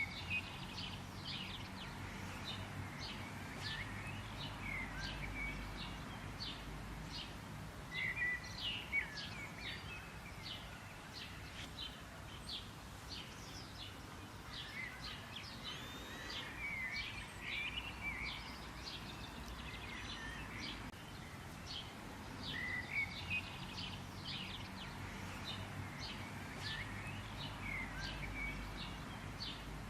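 Several songbirds chirping and twittering, with many short repeated notes and whistles layered over each other, over a faint steady rumble of outdoor background noise.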